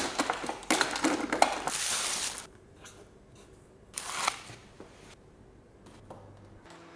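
Small tools and odds and ends clattering and rustling as they are handled and sorted into small wooden drawer compartments. Then it goes much quieter, with one short rustle about four seconds in as a sticker is peeled from its sheet.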